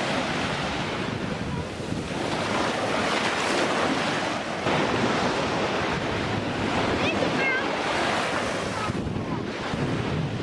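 Ocean surf breaking and washing up on the beach, the roar swelling and easing with each wave, with wind buffeting the microphone.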